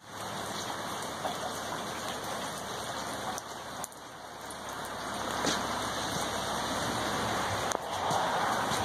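Steady rain falling: a constant even hiss, with a few sharp ticks of drops or handling.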